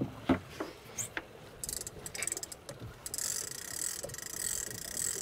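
Big-game conventional fishing reel being cranked, its gears ticking quickly and evenly as it winds in slack line that has broken off. A few separate knocks come first, and the steady ticking starts about a third of the way in.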